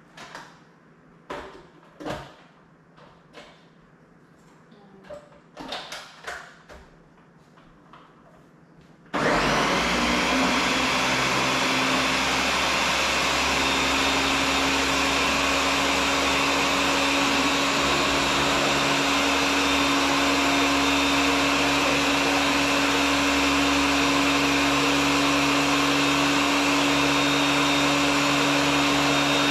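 A few light knocks, then about nine seconds in a countertop blender switches on suddenly and runs steadily, loud and even with a constant hum under it, blending fruit into a smoothie.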